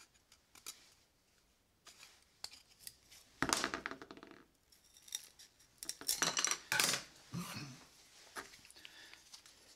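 Scissors cutting through a thin wooden strip: a series of short, sharp snips, loudest between about three and a half and seven seconds in, with small clicks of the wood and scissors being handled.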